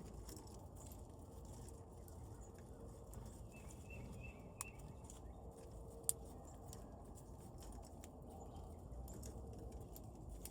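Birds at a feeder: a few faint, high chirps and scattered sharp taps over a low, steady outdoor rumble. The loudest tap comes about six seconds in.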